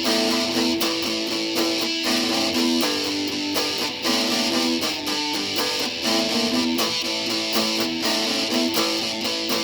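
Instrumental passage of a song: strummed guitar with sustained chords and a steady beat, no vocals.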